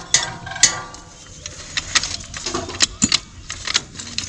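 Hammer blows on the steel drive shaft and running gear of a hand tractor, two sharp strikes in the first second, then lighter scattered metal clicks and knocks as the parts are worked, knocking an off-centre shaft back into line.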